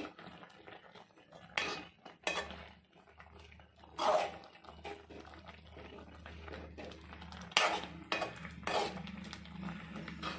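Metal utensil clinking and knocking against a cooking pot, about six sharp separate strikes, over a low steady hum.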